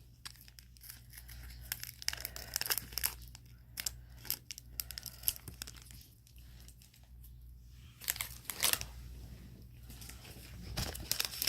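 A Japanese beef jerky snack packet being torn open and crinkled by hand: irregular crackling and ripping in several bursts, busiest about a second in and again around eight and eleven seconds.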